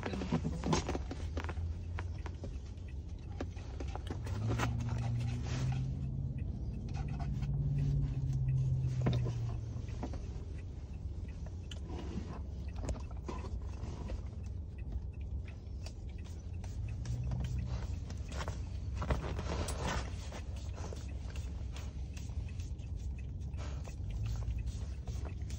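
Basset hound licking whipped cream out of a small paper cup: irregular wet licking clicks, over a low steady rumble.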